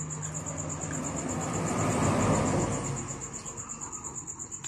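A vehicle passing by, its noise swelling to a peak about two seconds in and fading away.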